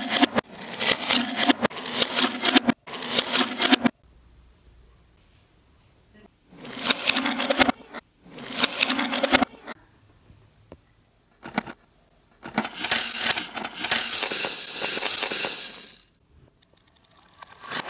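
Toy cars and trucks rolling across a wooden floor in several rattling runs, the longest lasting a few seconds near the end, with a few sharp plastic clacks from the toy garage's doors in between.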